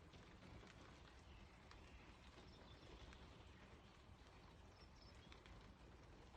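Faint rain on a car: scattered single drops ticking irregularly on the body over a steady low hiss.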